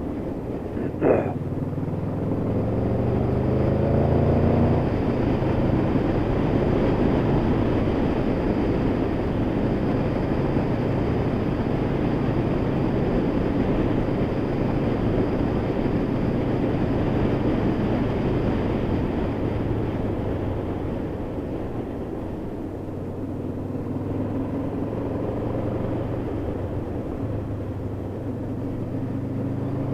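Honda VFR800's V4 engine pulling with its note rising for the first few seconds, then a steady rush of wind and road noise while riding on. The engine rises in pitch again over the last several seconds. A brief sharp sound about a second in is the loudest moment.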